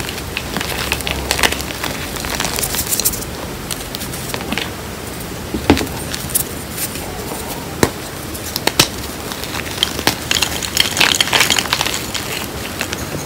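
Hands squeezing and crushing reformed gym chalk and loose chalk powder mixed with cornstarch: a steady crackling crunch, with a few sharp snaps of chunks breaking around the middle and denser crumbling near the end.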